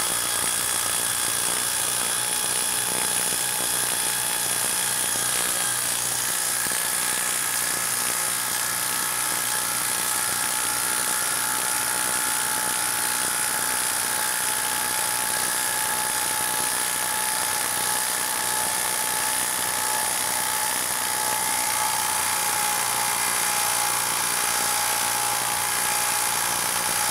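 Craftsman 20V brushless impact driver hammering steadily under heavy load as it drives a 6-inch lag screw into a log without a pilot hole.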